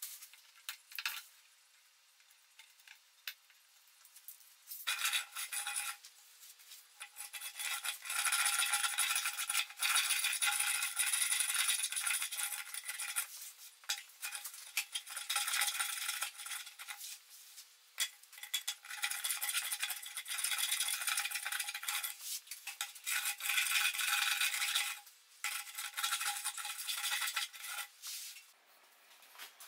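A hand sanding block rubbing back and forth over a laminated wooden benchtop: fast, uneven, scratchy strokes. It starts about five seconds in after a few light clicks, and pauses briefly near the end.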